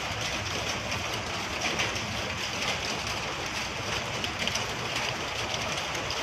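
Steady rain mixed with falling small volcanic stones: an even hiss with fine, dense patter over a low rumble.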